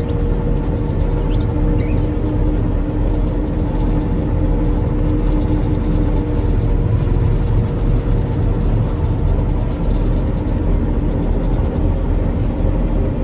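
Combine harvester running steadily while cutting rye: a constant engine and machinery drone with a low rumble and a few held hum tones.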